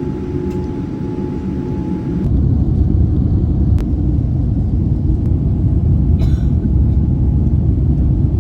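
Airliner cabin noise: a steady low rumble of engines and airflow heard from inside the cabin, growing clearly louder about two seconds in.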